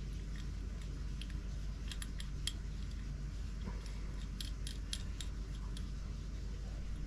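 Light clicks and taps of small metal and plastic outboard-carburetor primer parts being handled and fitted together. A few come about two seconds in and a quicker cluster about four and a half seconds in, over a low steady hum.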